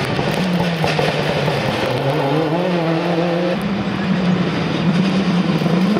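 Rally car engine at full stage speed, its pitch repeatedly rising and falling as the driver revs, lifts and shifts through the junction, with a change in the engine note about halfway through.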